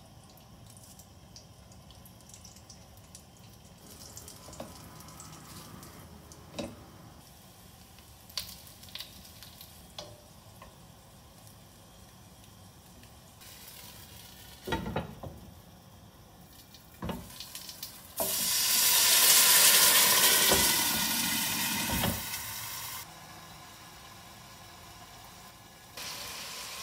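Dumplings frying in a little oil in a pan, a faint sizzle with scattered clicks and knocks as they are set in and the lid is handled. About two-thirds of the way through, water poured into the hot, lidded pan sets off a loud burst of sizzling and steam hiss. After about five seconds it drops to a steadier, quieter hiss as the dumplings steam.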